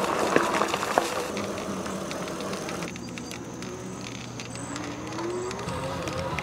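Electric bike being ridden: tyres crunching and rattling over gravel for the first second or so, then a quieter, steady rolling on pavement. A faint whine rises in pitch about five seconds in.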